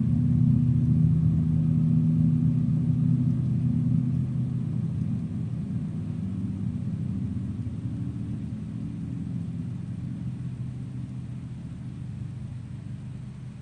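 Ambient drone music: low sustained tones that slowly fade out.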